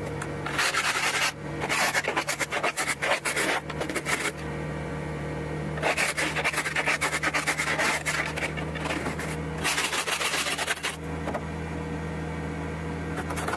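Ice scraper rasping quickly back and forth across a frozen windshield in four spells of strokes, clearing the ice off the glass. A steady low engine hum runs underneath.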